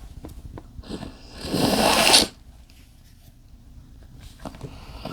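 A man sneezing from chikni sneezing powder. About a second and a half in he lets out one loud sneeze that he tries to stifle, but it comes out in full and stops abruptly. The build-up to another sneeze starts near the end.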